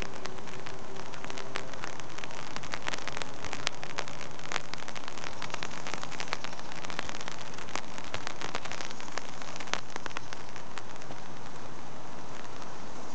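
Rain pattering on an umbrella canopy overhead: a steady hiss dotted with many sharp drop ticks, which thin out after about ten seconds.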